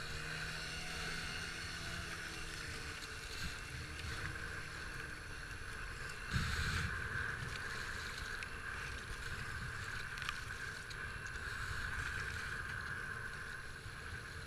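Rushing whitewater of a flooded river heard from a kayak running the rapids: a steady rush, with a louder splash about six seconds in as the bow pushes through a wave.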